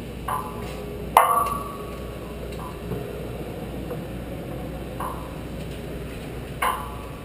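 Steel load chain of a half-ton chain hoist clanking against the aluminium truss tower: sharp metallic clanks that ring on briefly, five in all, the loudest about a second in and another strong one near the end.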